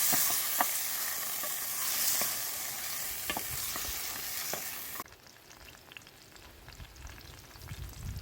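An omelette frying in a pan over an open fire: a steady sizzle with a few sharp clicks of a utensil against the pan. The sizzle cuts off abruptly about five seconds in, leaving only faint low background sound.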